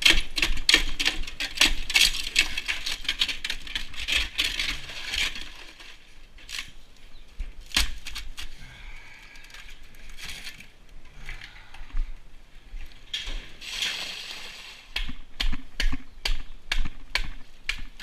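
Manure fork scraping and clattering on a stall floor while mucking out straw bedding: a rapid run of scrapes and clicks, busiest in the first five seconds and again from about thirteen seconds in.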